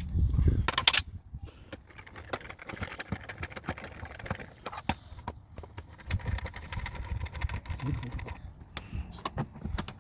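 Irregular clicks, taps and knocks of hand tools and metal engine parts being handled while the intake is dismantled to reach the throttle body and idle air control valve, with a heavier clatter at the start.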